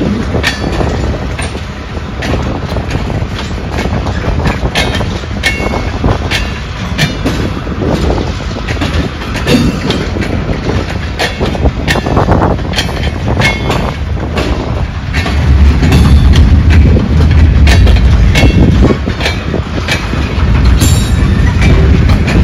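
Freight train of open gondola cars rolling past close by: a steady low rumble from the cars, with wheels clicking sharply over the rail joints. The rumble swells noticeably about two-thirds of the way through and again near the end.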